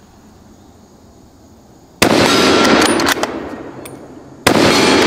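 Two shots from a Sako controlled-feed bolt-action hunting rifle, about two and a half seconds apart. Each is a sudden loud crack followed by an echo that dies away over about a second.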